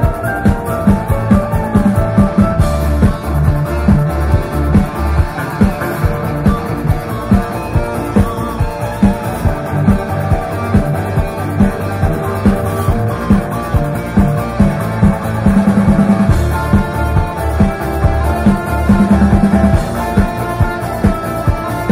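Live rock band playing loudly: electric guitars and bass over a drum kit keeping a steady beat.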